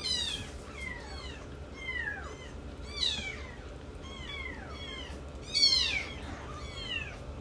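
Very young kittens mewing, one thin high cry after another, each sliding down in pitch, some overlapping. The loudest cry comes about five and a half seconds in.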